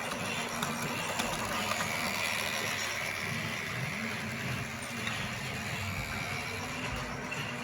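Lego Duplo toy train running on its plastic track: a small electric motor whirring steadily, with small clicks from the wheels and track.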